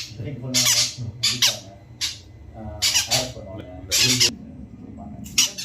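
Yellow-sided conure (a green-cheeked conure colour form) giving a series of short, high, piercing calls, about one a second, over a faint steady low hum.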